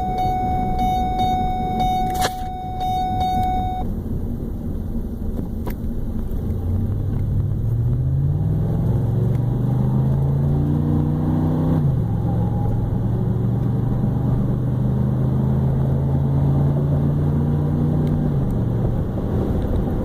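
2010 Ford F-150 pickup under way, with its drivetrain and engine noise rising in pitch as it accelerates. The pitch drops suddenly about two-thirds of the way in, like a gear change, holds steady, and falls again near the end. A steady high tone sounds for the first few seconds. The owner is recording a grinding noise he has not been able to trace.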